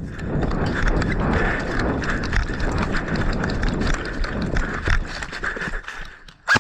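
A person running, with footfalls, clothing and gear rustling close to the microphone in a dense, continuous scuffing that dies down near the end.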